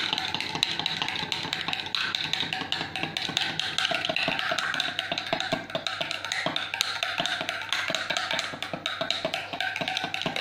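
Metal spoon stirred quickly in a drinking glass, clinking against the glass in a rapid, continuous run of taps.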